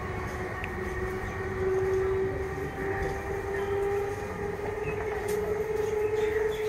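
Electric multiple unit local train running, with a steady motor whine that slowly rises in pitch over a low rumble.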